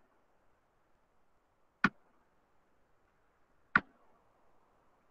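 Two sharp single clicks, about two seconds apart, over faint room hiss.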